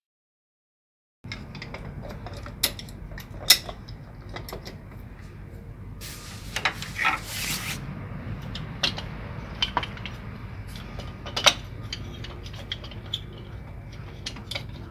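Hand tools working on plumbing pipe and fittings: scattered clicks and knocks over a steady low hum, with a short rasping scrape about six seconds in.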